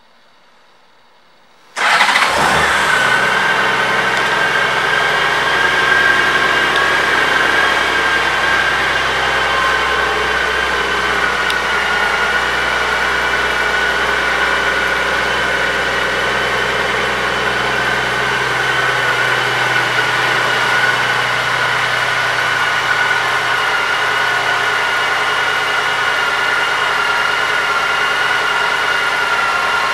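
A 2005 Honda Gold Wing's flat-six engine comes in suddenly about two seconds in and then idles steadily, with a steady high whine over it.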